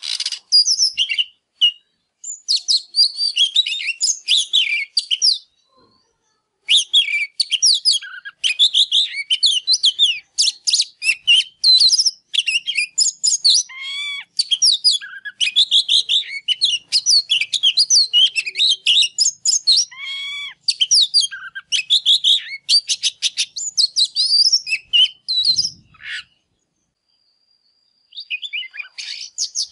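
Male oriental magpie-robin in full song: a fast, varied stream of whistles, slurred notes and trills, breaking off briefly about six seconds in and again for a second or two near the end. This is the vigorous song of a bird in breeding condition, singing while it displays.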